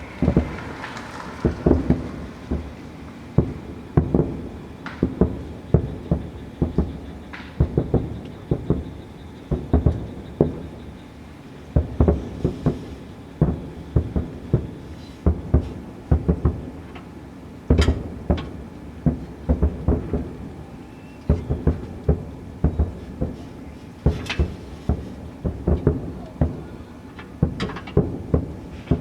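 Fireworks shells bursting in quick succession: a continuous barrage of booms and cracks, often several a second.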